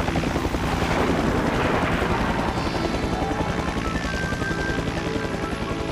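Cartoon helicopter sound effect: a rotor chopping steadily, with background music underneath.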